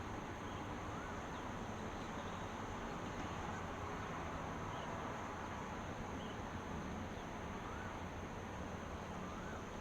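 Steady outdoor ambient hiss with a few faint, short bird chirps: one about a second in and two more near the end.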